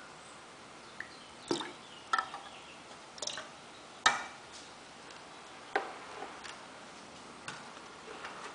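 A small plastic test vial being rinsed in a plastic measuring cup of sample water and handled: a handful of separate light clicks and knocks, the sharpest about four seconds in.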